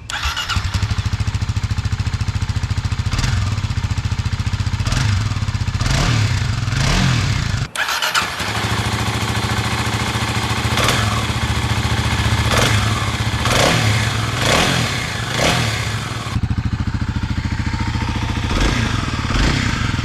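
2021 Kawasaki KLX300 single-cylinder four-stroke engine on its stock exhaust muffler, idling and revved in short blips over and over. There is a brief dropout about eight seconds in, and a steadier stretch of idle near the end.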